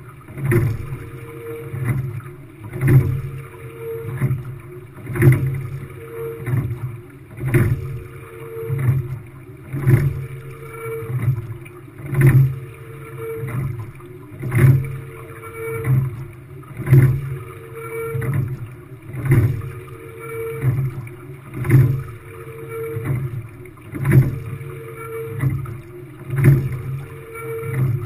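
Quad scull being rowed at a steady rate of about 25 strokes a minute. Each stroke brings sharp clacks from the oars turning in their oarlocks and water rushing along the hull.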